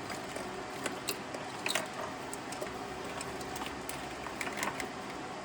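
Scattered light clicks and rustles of a wiring harness and its plastic plugs being handled and laid over an engine.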